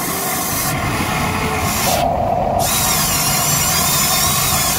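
Motors of a Huina RC excavator whining as the arm and bucket dig through wet mud, the pitch wavering with the load. A stronger lower note comes briefly about two seconds in.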